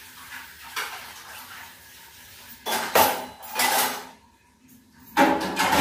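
Steel dishes and utensils clattering in a stainless steel sink as they are washed by hand, with loud clatters about three seconds in and again near the end.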